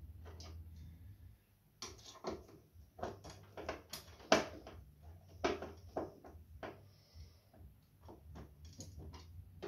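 Hand screwdriver working a mounting screw into the back of a TV through a metal bracket plate: irregular clicks and scrapes of metal and plastic, sharpest about four seconds in. The screw is not going fully in.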